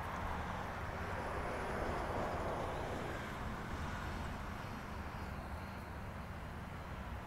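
Road traffic noise: a passing vehicle's tyre noise swells about two seconds in and then slowly fades, over a steady low rumble.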